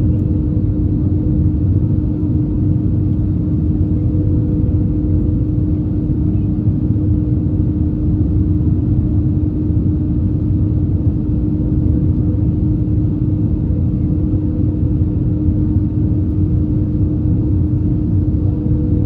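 Steady cabin noise inside an Airbus A321: a deep, even rumble of engine and airflow with a constant low hum running through it.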